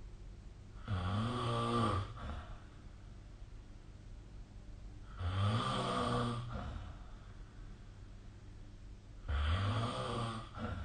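A sleeping person snoring: three low-pitched snores about four seconds apart, each a little over a second long.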